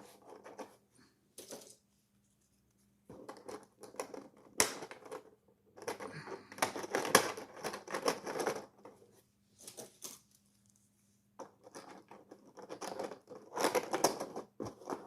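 Small 3D-printed plastic scales clicking and rattling as they are handled and hooked together, in several bursts of quick clicks with short pauses between.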